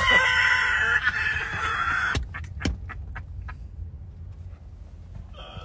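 A man's high-pitched, squealing laugh for about two seconds. A few short clicks follow over the low rumble inside a car.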